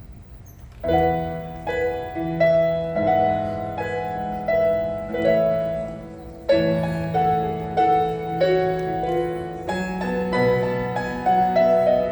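Keyboard playing, starting about a second in: struck chords over a bass line, each note sounding and fading, without any voice yet.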